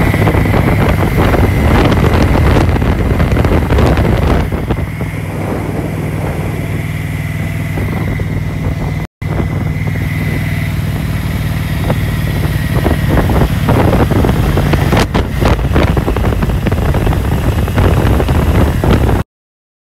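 Cruiser motorcycle engine running steadily while riding, with wind buffeting the microphone and a thin high whine over the low engine note. The sound drops out briefly about nine seconds in and cuts off suddenly near the end.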